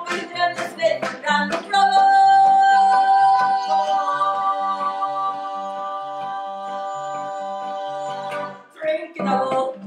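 A small vocal group of female and male voices sings live in close harmony. A quick run of sung syllables leads, about two seconds in, into one long held chord, with a steady low pulse underneath. Near the end the voices break back into quick singing.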